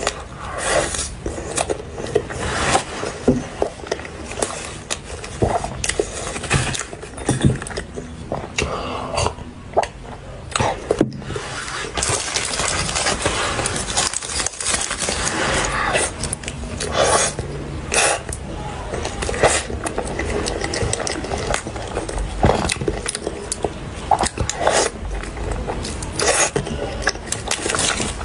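Close-miked eating sounds: chewing and wet mouth clicks on a soft cream-filled pastry and a snow skin mochi filled with mango and cream. Partway through there is a denser stretch of rustling as the mochi is handled out of its paper cup.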